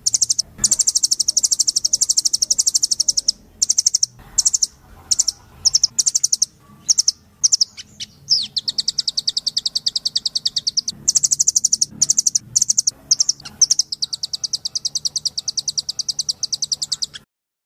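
Velvet-fronted nuthatch calling in fast, high trills of rapidly repeated notes. The trills come in long runs broken by short pauses and scattered single notes, and they cut off suddenly near the end.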